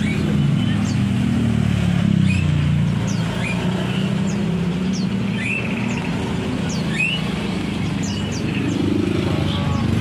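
Steady low rumble of motor traffic, with small birds giving short high chirps about once a second over it.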